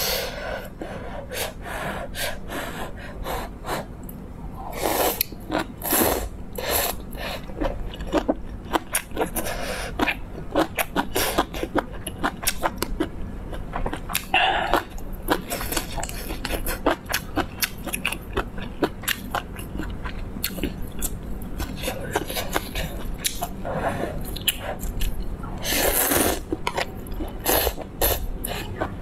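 A person eating noodles: wet chewing with many small mouth clicks and smacks, broken by several longer slurps of noodles.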